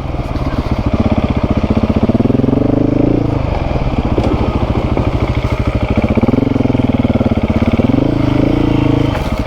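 Adventure motorcycle engine running under way with a steady pulsing beat, its pitch rising and easing back twice as the throttle is worked.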